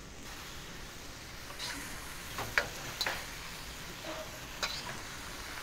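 Beef and broccoli sizzling in a hot wok as a metal spatula stir-fries them, with a steady hiss and several sharp scrapes and clinks of the spatula against the wok.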